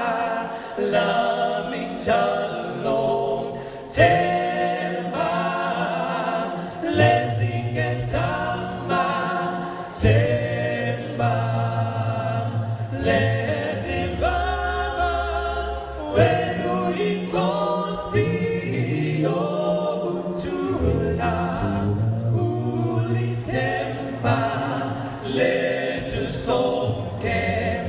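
An a cappella vocal group singing in harmony without instruments, low bass notes held beneath the higher voices, with sharp percussive accents about every two seconds.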